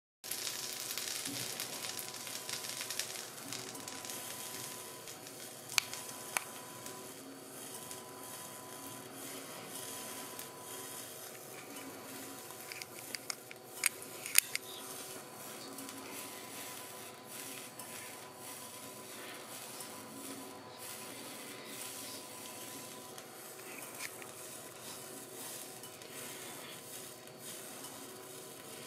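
Butter melting and sizzling in a hot steel pan, a soft crackling hiss that is strongest in the first few seconds and then settles. A few sharp clicks come about 6 seconds in and again around 14 seconds.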